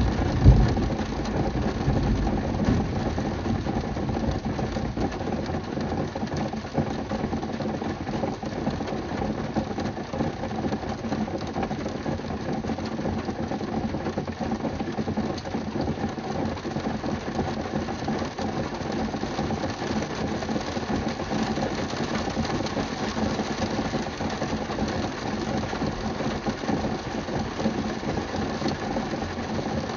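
Steady rain falling on a car's roof and windshield, heard from inside the car, over a steady low hum. The tail of a thunder rumble fades out about a second in.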